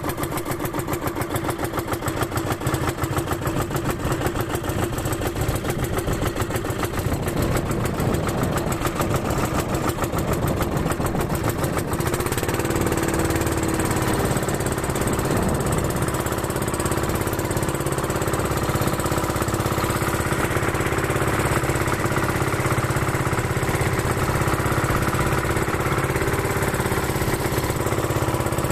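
A boat's motor running steadily with a fast, even beat. About twelve seconds in the sound changes and the beat blends into a smoother, steadier drone.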